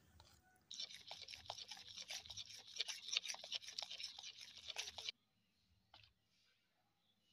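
Spoon beating cake batter in a plastic bowl: rapid scraping and clicking against the bowl, starting just under a second in and stopping abruptly about five seconds in.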